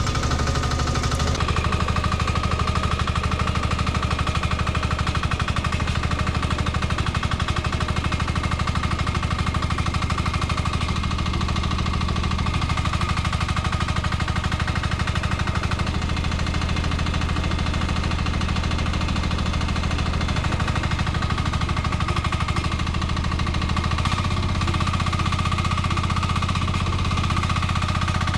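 Nuoman E10 1-ton mini excavator's small diesel engine running steadily with a rapid, even chugging, working hard on a steep hillside.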